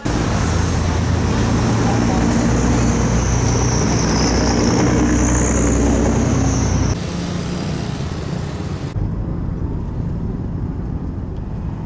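Outdoor street noise with motor vehicles running, among them motorized tricycles, and a heavy low rumble. A high whine wavers through the first seven seconds, then the sound changes abruptly, and again about two seconds later.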